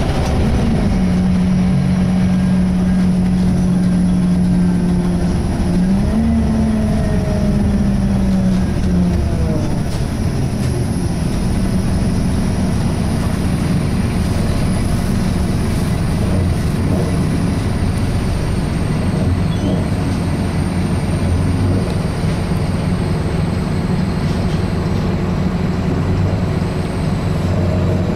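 Scania K230 single-deck bus heard from inside while under way: engine and road rumble with a loud, steady, low groan through the first third that bends upward in pitch before merging back into the running noise. A faint high whine runs on underneath.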